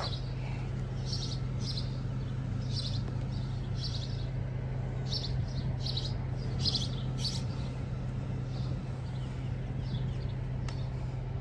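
Small birds chirping in short, quick clusters, repeated every second or so and thinning out toward the end, over a steady low hum.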